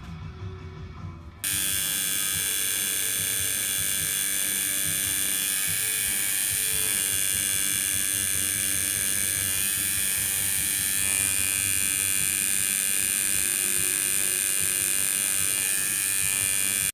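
Tattoo machine buzzing steadily, cutting in abruptly about a second and a half in.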